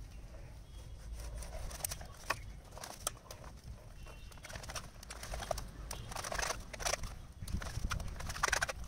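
Knife slicing raw goat offal on a wooden cutting board, with irregular taps of the blade against the board.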